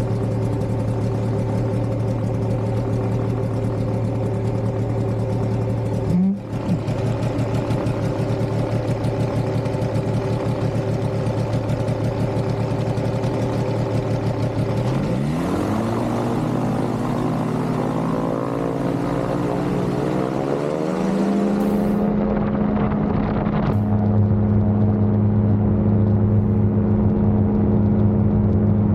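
Ultralight aircraft engine running steadily, then about halfway through its pitch rises smoothly over several seconds as the throttle is opened, settling into a higher, steady drone.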